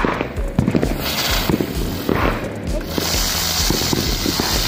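Lotus ground-spinner firework sputtering as it starts to spark, then hissing loudly from about three seconds in as it catches and spins, over background music with a steady beat.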